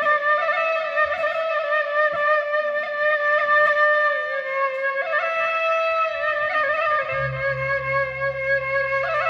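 Sasak gendang beleq gamelan music: a single wind pipe plays a melody in long held notes with quick ornamental turns between them. A low steady drone comes in about seven seconds in.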